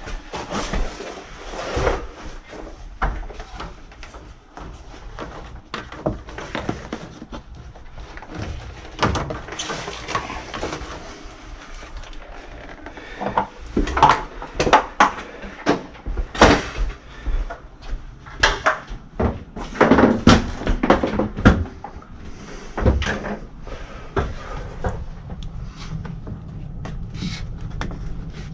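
Irregular knocks, clicks and rustling of hand tools and tubing being handled while working on an AC condensate line, with clusters of louder knocks about halfway through and again around twenty seconds in.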